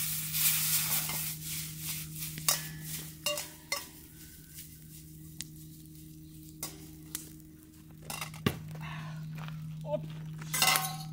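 Fried rice frying in an iron pan over a campfire: a burst of sizzling in the first couple of seconds, then the iron ladle clacking and scraping against the pan as the rice is stirred and tossed. A low steady hum runs underneath.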